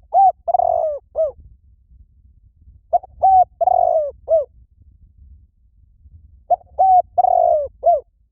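Spotted dove cooing, repeating its four-note phrase three times about three seconds apart, with the third note of each phrase drawn out longer. This is the call used as a lure to attract wild doves.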